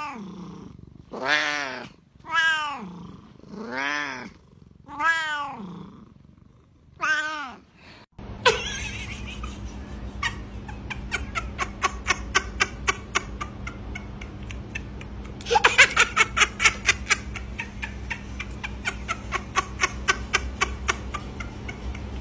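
A cat meowing six times, each meow long and rising then falling in pitch. Then a steady low hum with a quick run of sharp clicks, which grow louder and closer together for a second or two about two-thirds of the way through.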